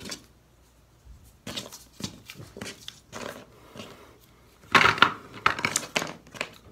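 Pens, pencils and other stationery clicking and clattering as they are picked up and sorted by hand, with a louder cluster of clatters about five seconds in.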